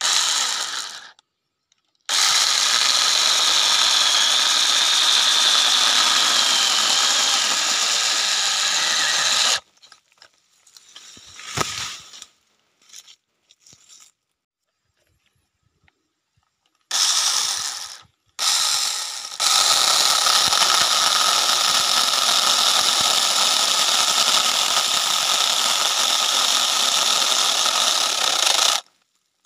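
Cordless battery-powered mini chainsaw running and cutting through a small tree trunk and branch: a steady high motor whine in long runs. About ten seconds in it stops for several seconds, with only a few faint knocks, then starts again and runs until just before the end.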